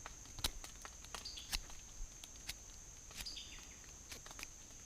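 Pocket knife whittling a point on a small green tree limb: sharp snicks of the blade cutting into the wood, irregular, about two a second. A steady high insect drone runs underneath.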